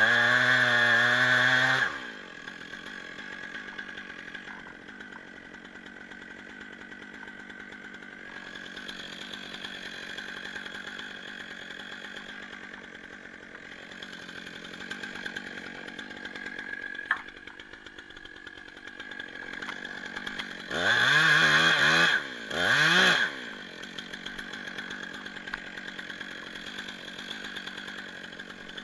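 Stihl 661 two-stroke chainsaw revved hard for about two seconds at the start, then idling steadily. It is revved again in two short bursts near the end, and there is a single sharp click midway.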